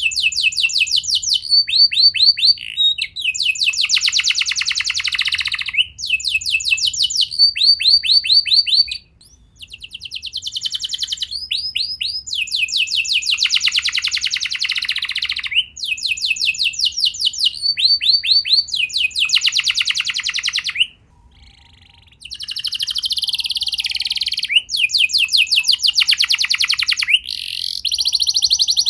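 Domestic canary singing: long phrases of fast repeated notes in trills that switch from one note type to another every second or so, broken by two short pauses.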